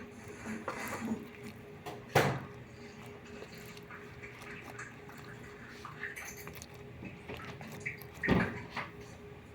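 Slime studded with foam beads being squeezed and kneaded by hand: soft wet squishing with small scattered clicks, and two louder sudden squelches, about two seconds in and near the end. A faint steady hum runs underneath.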